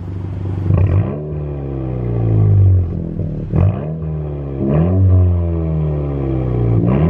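2019 Honda Civic Si's 1.5-litre turbocharged four-cylinder being revved while parked, heard at the exhaust tip: four quick throttle blips, each rising sharply and falling back toward idle.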